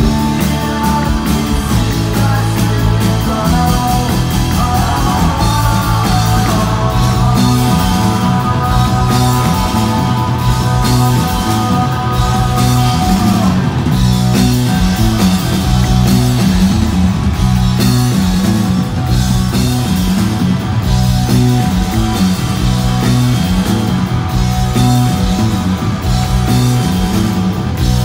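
Shoegaze rock band playing loud, distorted electric guitars live over bass and drums. Held guitar notes ring over the band from about three seconds in, bend briefly, and stop about halfway through.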